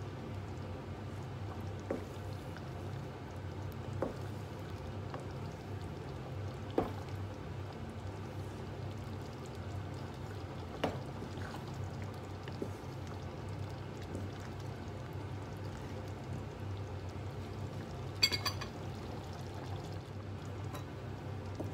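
Thick curry sloshing as it is stirred with a wooden spatula in a stainless steel pot, with a few sharp knocks of the spatula against the pot over a steady low hum. Near the end, a brief ringing metallic clink.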